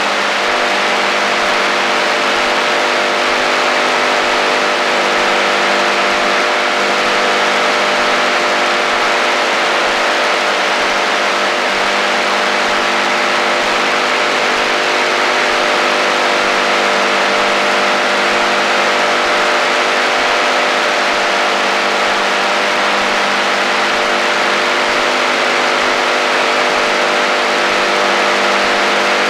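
AM radio interference on the HF band: steady, unbroken static hiss with several steady low tones held beneath it, giving a droning buzz.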